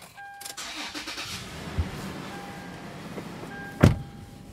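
2019 Toyota 4Runner's 4.0-litre V6 being started and running, with an electronic beep sounding on and off. A loud thump comes near the end.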